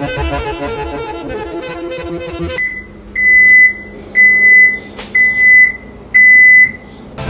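Background music, which stops about two and a half seconds in. A high electronic beep then sounds five times, about once a second, each beep held for about half a second.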